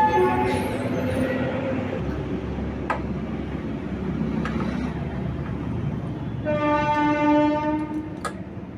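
Steady low engine and traffic rumble, with a horn sounding once for about a second and a half near the end.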